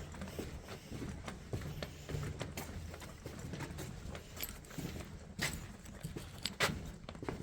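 Footsteps on a hard tunnel floor: irregular knocks and scuffs, with a few sharper knocks.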